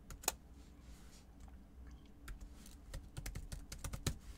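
Faint, irregular keystrokes on a computer keyboard as an email address is typed.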